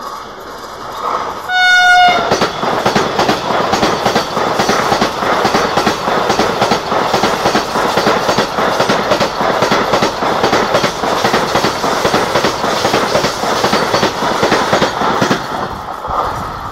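Vande Bharat Express electric multiple-unit train giving one short horn blast about two seconds in, then passing close by at speed: a loud rush of wheel and rail noise with rapid clickety-clack over the rail joints, which falls away near the end.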